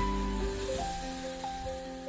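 Background music: soft held notes with a slow, gentle melody, the low bass fading out about half a second in and the music growing quieter.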